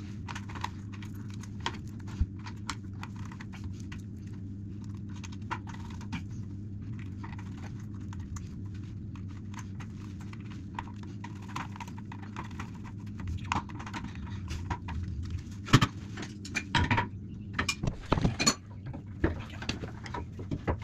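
Small clicks, taps and rattles of hands handling the plastic and metal fittings of an over-sink water heater, coming thicker and louder near the end, over a steady low hum.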